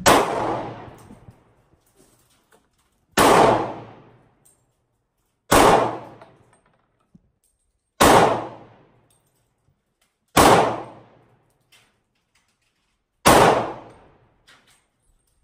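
Handgun fired six times in slow, deliberate single shots, about two and a half seconds apart. Each sharp report is followed by a short echoing tail.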